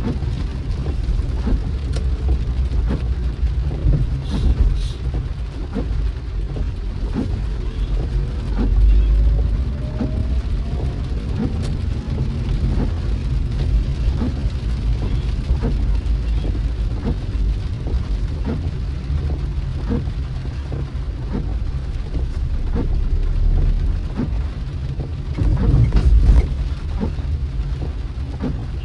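Car driving in the rain: a steady low rumble of the car with rain and many scattered raindrop taps. The low rumble swells louder a few times, about nine seconds in and again near the end.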